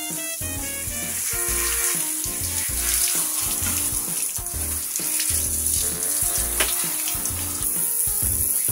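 Water from a hand-held shower head spraying onto a wet dog's fur, a steady hiss. Background music with a regular bass beat plays along with it.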